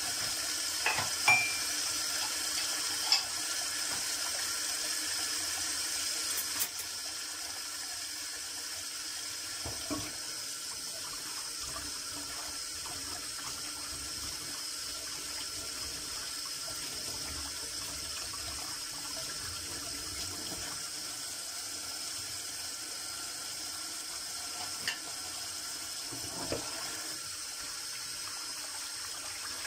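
Kitchen tap running steadily into a stainless steel sink while dishes are washed by hand under the stream, with a few sharp knocks of the dishes. The water sound drops a little about six seconds in.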